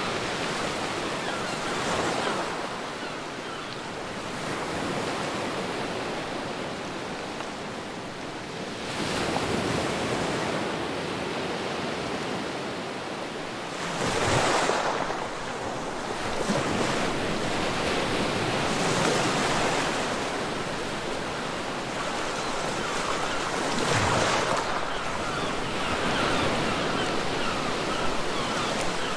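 Ocean waves breaking on a beach, a surge of surf rising and falling every five seconds or so.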